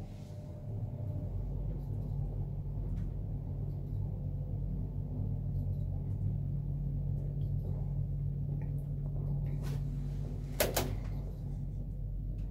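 Schindler S-Series lift car travelling down: a steady low hum of the car in motion, which swells over the first second or so. A sharp click comes near the end.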